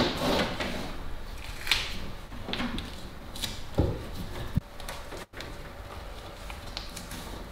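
Cable handling: a network cable rustling and rubbing as it is fed along the top of a shelf unit, with scattered light knocks and clicks. The sound cuts out briefly about two-thirds of the way through.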